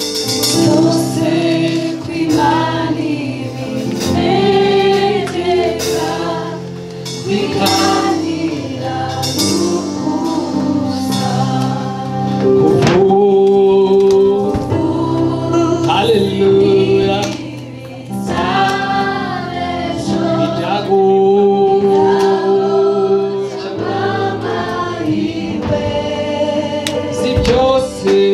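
A gospel worship song sung by several voices over sustained keyboard chords.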